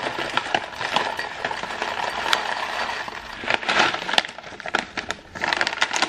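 Granola being poured from a stand-up pouch into a glass jar: dry clusters rattling as they slide out, with the pouch crinkling in the hand. It is a continuous patter of small clicks, louder about three and a half seconds in and again near the end.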